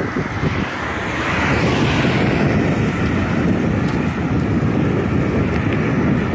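Wind buffeting the microphone of a camera on a moving bicycle, with road traffic behind it; a passing vehicle swells and fades about two seconds in.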